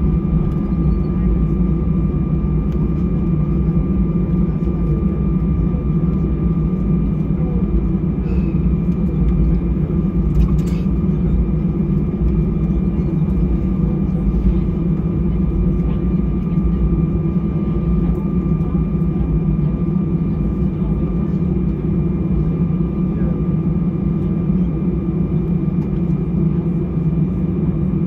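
Steady low hum inside a parked Airbus A319's cabin, with a thin steady whine on top from the air-conditioning and ventilation, and a single sharp click about ten seconds in.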